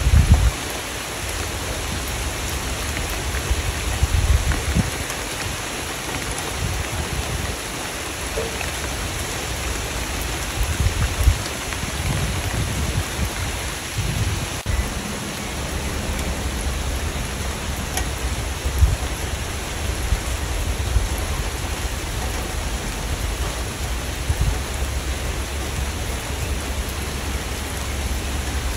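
Steady rain falling, an even hiss of drops hitting surfaces, with low rumbles swelling and fading several times.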